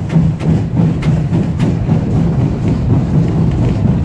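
Class 50 steam locomotive 50 3648 heard from its cab while moving slowly: a rhythmic exhaust beat and running-gear knock over a low rumble.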